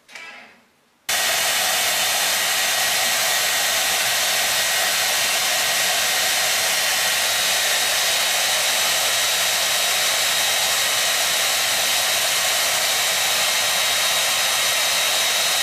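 Steady rushing airflow from a small electric motor-driven appliance, with a faint high whine. It starts abruptly about a second in and holds constant.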